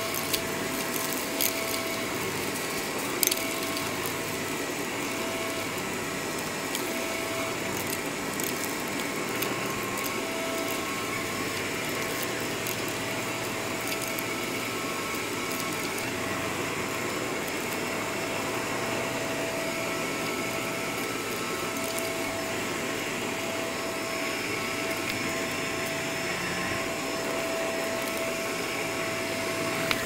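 Upright bagless vacuum cleaner running steadily over carpet, with a steady motor whine. A few sharp crackles in the first few seconds are grit being sucked up.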